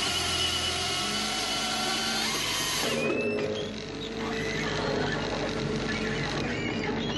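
Machinery running steadily, with steady whining tones over a noisy rumble; the sound changes abruptly about three seconds in.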